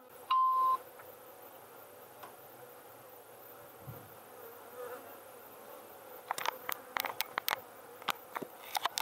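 Italian honeybees buzzing in a faint, steady drone around a freshly installed hive. A short electronic beep sounds about half a second in, and in the last few seconds the camera being handled gives a quick run of sharp clicks and knocks.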